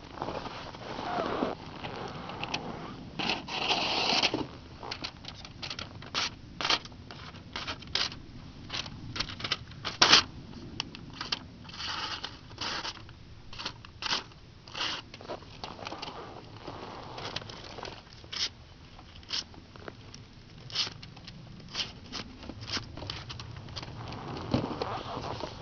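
Composite knife of 6-4 titanium and G-10 slicing through a sheet of paper: a string of short, crisp cuts and paper crackles at an uneven pace, the loudest about ten seconds in.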